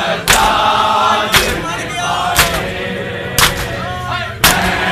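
Crowd of mourners doing matam: open hands slapping bare chests in unison, five strikes about a second apart, with men's voices chanting between the strikes.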